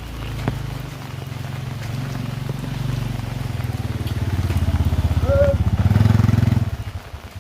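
A motor vehicle's engine passing close by, growing louder to a peak about six seconds in, then falling away sharply near the end.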